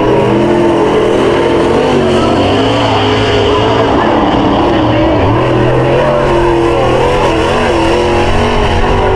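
Dirt late model race car engines running hard on the dirt oval, their pitch rising and falling over and over as the cars accelerate and back off through the laps.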